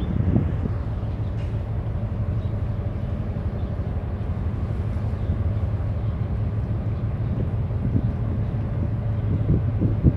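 Large container ship passing close, its engines giving a steady low drone with a hum. Wind buffets the microphone briefly near the start and again near the end.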